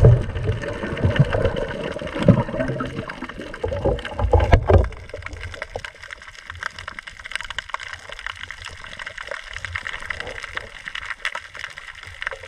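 Water heard through an underwater camera: churning and bubbling water with low thumps for the first few seconds, then quieter underwater ambience full of many small clicks.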